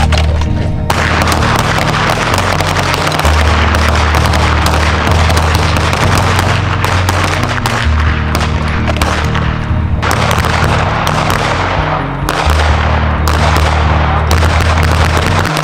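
Background music with a heavy bass line, laid over rapid, overlapping pistol fire from a line of shooters.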